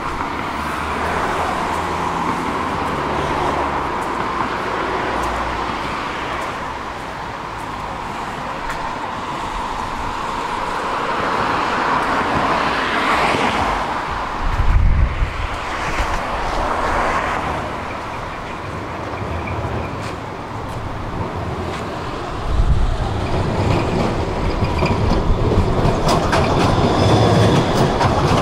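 A tram approaching on street track and passing close by, getting louder over the last several seconds, over steady street noise. A thin steady whine runs through the first two-thirds, and a short low thump comes about halfway.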